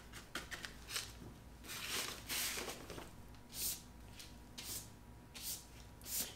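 A paintbrush stroking varnish across an oil pastel sketch on paper, a soft brushing swish about once a second.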